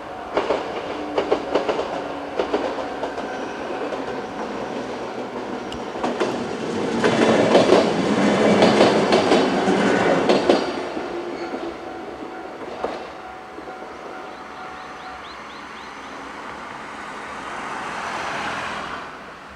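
Two-car 103 series electric train passing over a level crossing: its wheels clatter over the rail joints and it is loudest from about seven to ten seconds in, then fades away. A steady level-crossing warning bell rings under it and stops about fifteen seconds in.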